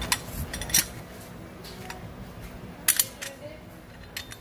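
Sharp metallic clicks and clacks, a handful spread unevenly with a quick double click about three seconds in, as a steel scaffold caster with a brake lever is handled and turned over by hand.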